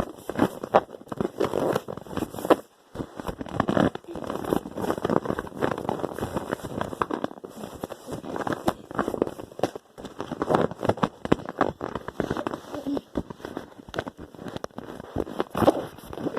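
A long run of fart sounds: rapid, irregular sputtering pops that come in bursts, with brief breaks about three seconds in and about ten seconds in.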